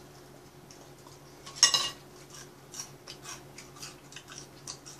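Chopsticks clinking and tapping against ceramic plates while picking up food. One sharp, ringing clink comes about a second and a half in, followed by lighter scattered clicks.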